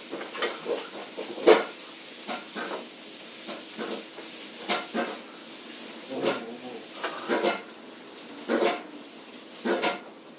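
People eating pasta at a table: slurping and chewing noodles, with short clinks of forks and spoons on plates and bowls and a bit of brief laughter and murmured voices.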